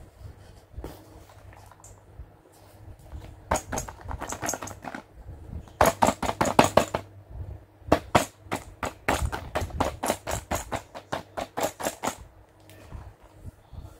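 Clear plastic packaging bag of a toy accessory set crinkling and crackling as it is handled, in several stretches of quick crackles, the longest near the end.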